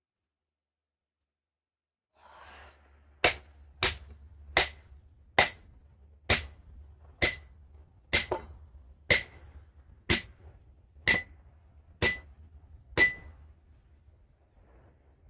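Twelve sharp hammer blows, about one a second, on a wedge driven into a chainsaw cut to split a large log, each strike ringing briefly like metal on metal; they start about three seconds in and stop shortly before the end.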